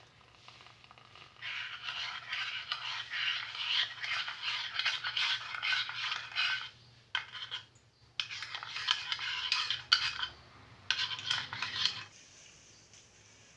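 Metal spoon stirring coffee in a ceramic mug, clinking and scraping against the sides in quick strokes: a long run of stirring, then shorter bouts with brief pauses.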